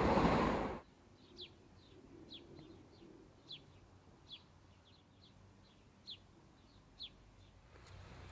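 A train running past below, a loud rushing noise that cuts off suddenly under a second in. Then a small bird chirping: short, falling chirps about once a second over faint background sound.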